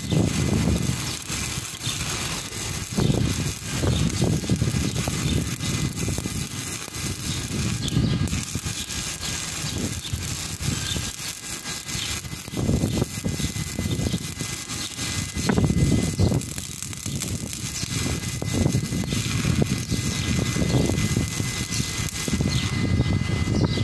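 Stick (shielded metal arc) welding arc crackling steadily as the electrode burns along a seam on heavy steel.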